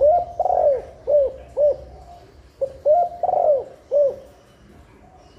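Spotted dove cooing: two phrases of about four short notes each, every note rising then falling in pitch, with a pause of under a second between the phrases.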